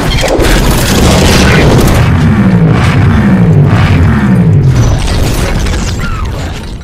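Loud booming sound effect that starts abruptly, with a run of falling sweeps about once a second in the middle, and fades out near the end.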